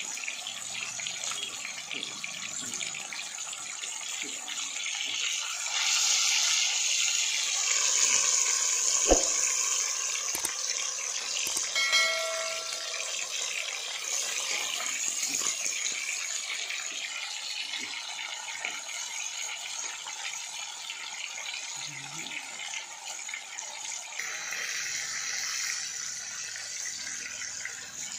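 Fish steaks sizzling in hot oil in a wide kadai, a steady crackling hiss that grows louder for a few seconds near the middle. A sharp knock about nine seconds in, and a brief chime a few seconds later.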